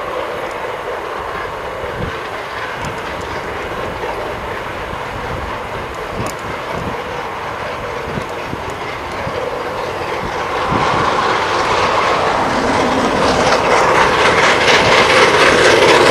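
NZR Wab-class 4-6-4T steam tank locomotive Wab 794 working its train, its exhaust beats and running noise growing steadily louder from about two-thirds of the way in as it approaches.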